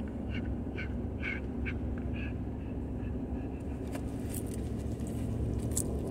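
Steady road and engine rumble inside a moving truck's cab. Over it comes a run of short, high squeaky sounds, about two a second, which stop about two seconds in. A few sharp clicks follow near the end.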